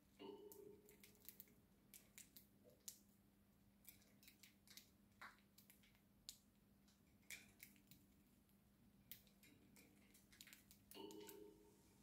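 Faint, irregular sharp clicks and snips of budgerigars pecking and husking seed, beaks working on a millet spray and perches, over a faint steady hum. A brief soft pitched sound comes at the start and again near the end.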